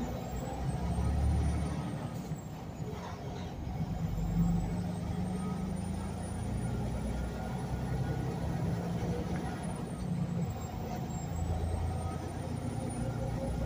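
Semi truck driving at a steady road speed, heard from inside the cab: a steady low engine drone with tyre and road noise.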